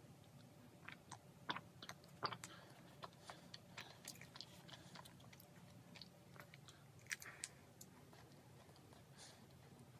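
Quiet close-miked eating sounds: scattered small wet mouth clicks and swallows from sipping milk and chewing, with a bite into a macaron late on.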